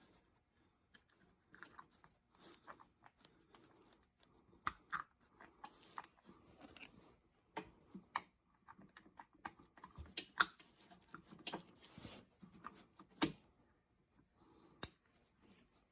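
Faint, irregular small clicks and scrapes of an engine oil drain cap being fitted and threaded in by hand, with a few sharper clicks among them.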